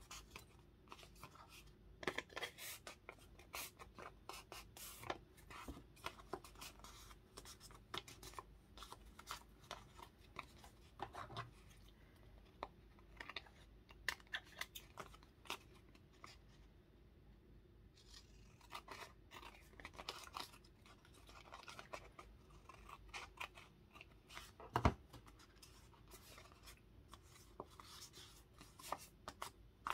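Scissors snipping paper in short, irregular clicks, mixed with the rustle of paper being handled, and one louder knock about five seconds before the end.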